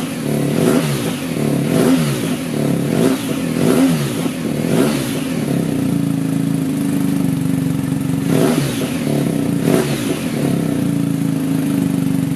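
BMW R1250 GSA's boxer-twin engine through an Akrapovič end can, revved in quick blips about once a second, then settling to a steady idle about halfway through, with two more short blips of the throttle near the end.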